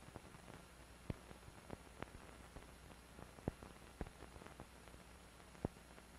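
Faint hiss and low hum of a worn old recording, broken by about half a dozen sharp, irregularly spaced clicks and pops.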